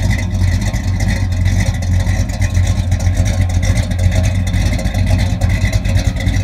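Car engine running loudly and steadily with a deep rumble.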